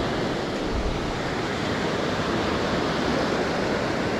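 Ocean surf breaking and washing up on a sandy beach: a steady, unbroken rush of waves.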